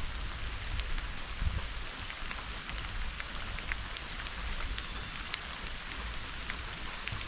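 Steady rain falling, with many separate drops ticking throughout.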